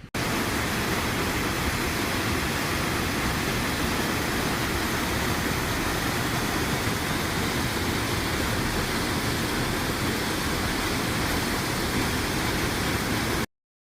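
Waterfall close by, a loud, steady rush of falling water that cuts in suddenly at the start and stops abruptly near the end.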